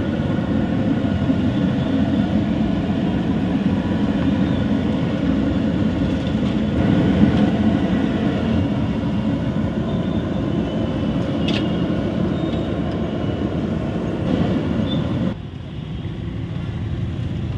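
A steady low rumbling noise with a few faint clicks. It drops abruptly to a quieter level about fifteen seconds in.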